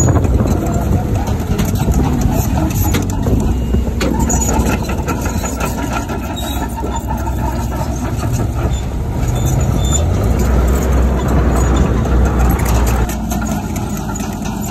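Heavy earthmoving machinery's diesel engine running under load, with a few sharp clicks and knocks; the low engine sound eases off about thirteen seconds in.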